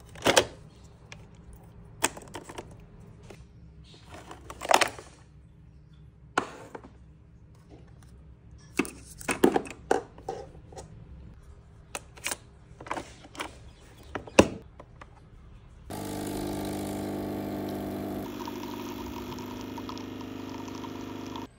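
Clicks and clacks of a Nespresso capsule machine being handled: the lever and lid worked and a capsule dropped in. About sixteen seconds in, the machine's pump starts a loud, steady buzzing hum as the coffee brews and pours, shifting in tone about two seconds later and cutting off suddenly at the end.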